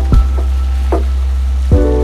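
Background music: sustained pitched notes over a deep steady bass, with a drum hit shortly after the start and another near the end.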